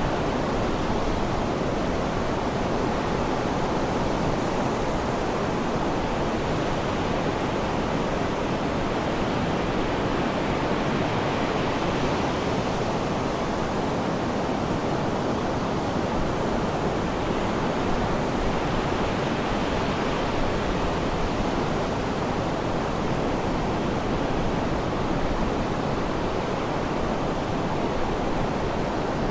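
Sea surf washing steadily, a continuous rushing of waves with no distinct breaks.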